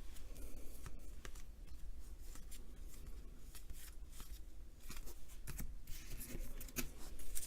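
2019 Topps baseball cards being flipped through and slid onto stacks by hand: quick card flicks and soft card-on-card rustling, repeated throughout.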